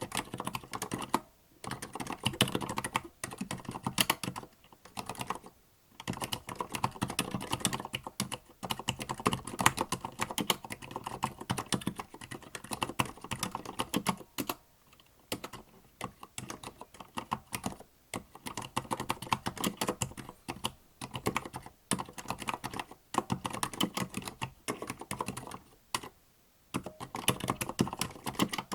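Continuous typing on a Tada68 65% mechanical keyboard with Gateron Silent Black linear, dampened switches: quiet, muted keystrokes in quick runs, broken by a few short pauses.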